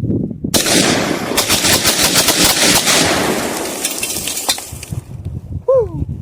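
Rapid burst of gunfire, shots in quick succession for about two and a half seconds, then trailing off. Near the end a short pitched sound slides down in pitch.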